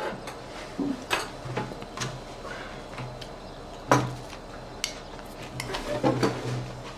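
Dishes and cutlery clinking and knocking, a scattered handful of sharp clinks, the loudest about four seconds in.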